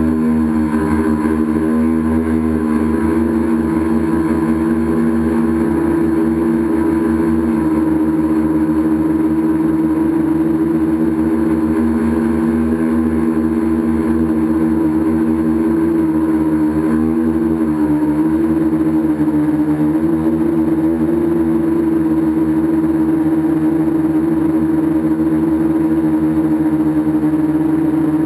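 Tricopter's three motors and propellers buzzing in flight, heard through its onboard camera: a steady droning whine whose pitch wavers briefly a little past the middle.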